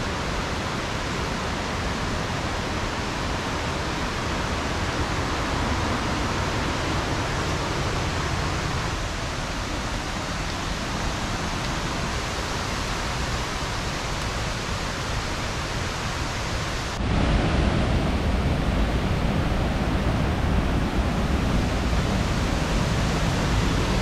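Steady rushing of a river and waterfalls, which gets louder and deeper about two-thirds of the way through.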